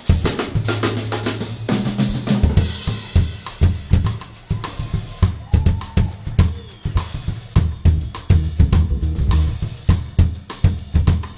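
Drum kit solo: a dense run of snare, tom and bass drum strokes with cymbal hits, the rest of the band silent.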